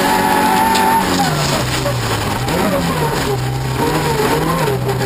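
Toyota Corolla rallycross car's engine heard from inside the cabin, running at high revs, then easing off about a second in and holding lower, wavering revs with a brief rise midway.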